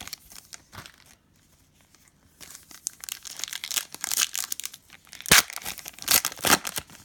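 Panini Prizm trading cards being handled and slid against one another, a crinkly, scratchy rustling. It starts faint, goes nearly quiet, then comes in sharp strokes from about two and a half seconds in, loudest a little past the middle.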